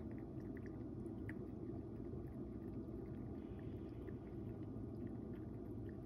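A cat eating dry kibble from a bowl, faint irregular small crunches over a steady low background hum.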